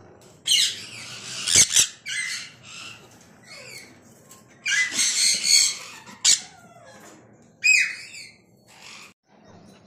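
Nesting female parakeet squawking harshly in several separate bursts as the nest box is opened and a hand reaches in toward her chicks. A sharp click or two comes about a second and a half in, from the box's metal bolt latch.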